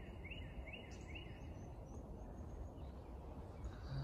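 A small bird giving a run of short repeated chirps, about two a second, that stop about a second and a half in, over steady low outdoor background noise.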